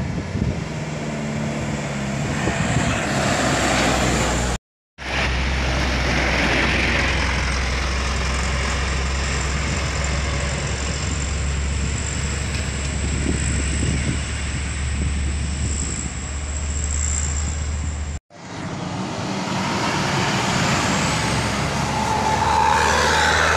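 Heavy vehicles, trucks and buses, driving past with engines running steadily and tyre noise from the road. The sound drops out abruptly twice, briefly each time.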